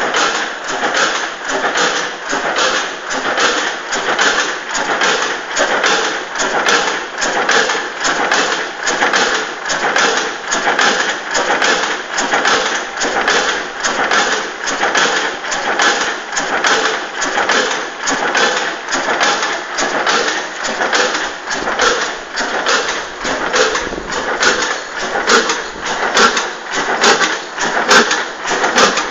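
Richard Hornsby Akroyd hot bulb oil engine of an 1890s 20 hp tractor running steadily, its valve gear clattering in an even, regular beat.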